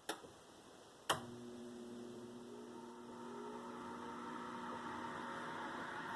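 Whirlpool convection oven during preheat: two sharp clicks about a second apart, then the convection fan starts and runs with a steady hum, its airy whoosh slowly growing louder.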